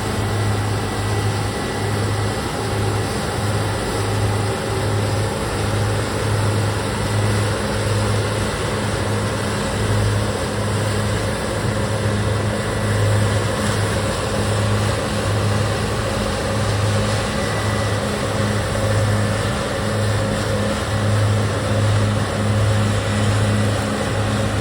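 Combine harvester's diesel engine running steadily under load while cutting soybeans, with a low pulsing hum and a constant wash of machine noise.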